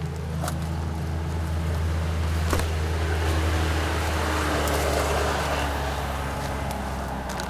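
Motor vehicle noise: a steady low engine hum, with road noise swelling towards the middle and fading, like a vehicle passing, and a few faint clicks.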